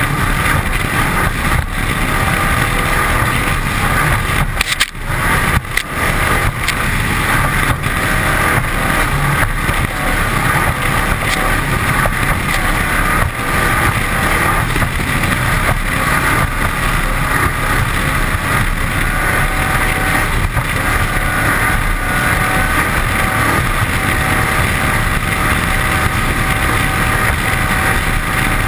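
1981 Cigarette 27 Squadron powerboat running at speed on its 540 V8 through a Konrad sterndrive. The steady engine noise is mixed with the rush of hull spray and wind on the microphone, with a brief drop in loudness about five seconds in.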